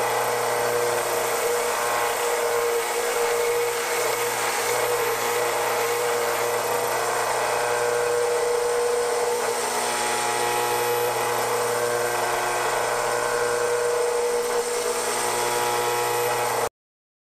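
Vertical belt sander running steadily, its motor humming under the whir of the moving belt, while small steel parts are squared up on it. The sound cuts off abruptly near the end.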